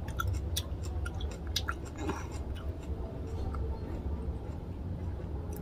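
Close-miked chewing of a soft mouthful of rice and fish curry: wet mouth clicks and smacks, thicker in the first couple of seconds and sparser after, over a low steady hum.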